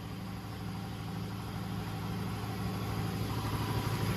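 Engine idling with a steady low hum, gradually getting louder.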